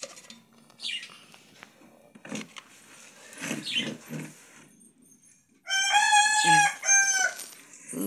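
A chicken calls loudly about six seconds in: one long held note, then a shorter one. Earlier come two fainter chirps that fall in pitch.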